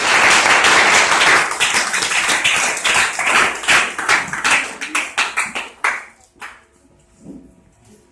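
Congregation clapping, a dense loud patter that thins to a few separate claps and dies away about six seconds in.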